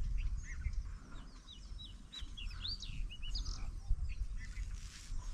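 Small birds chirping, with a quick run of short rising and falling chirps in the middle, over a steady low rumble.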